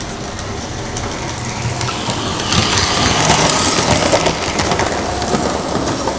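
Lionel 2245 Texas Special F3 diesel toy train running on tubular three-rail track, a steady rumble and rattle of motor and wheels. It swells about two and a half seconds in as the locomotive passes close by, then eases slightly.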